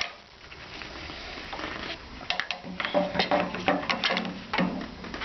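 Air filter housing being fitted onto a snowblower's carburetor by hand: a string of irregular clicks and light knocks starting about a second and a half in.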